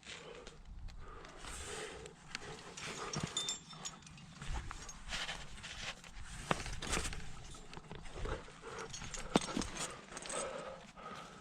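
A climber breathing hard while squeezing up a tight rock chimney, with clothing and gear scuffing against the rock and scattered sharp knocks.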